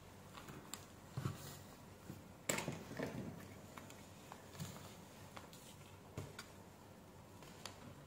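Faint handling noises on a workbench: a circuit board and multimeter test leads being picked up and moved. There are a few light taps, with a louder clatter about two and a half seconds in.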